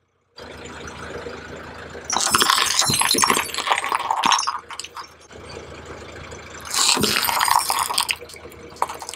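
Car tyre rolling slowly over wet, gritty pavement, crackling and crunching in two loud spells, the first about two seconds long and the second about one, over a steady low engine hum.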